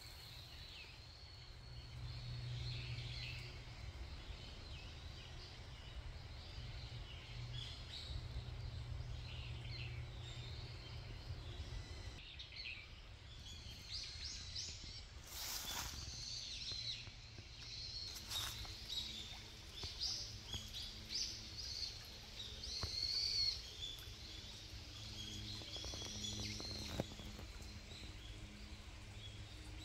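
Small birds chirping in woodland over a low steady rumble, the calls busiest in the second half. Two short rustling noises come about halfway through.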